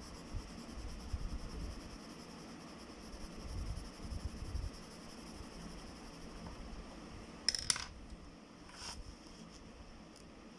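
Handling noises at a drawing desk: low bumps, then a short clatter of a small hard object on a hard surface about seven and a half seconds in, and a single click a second later.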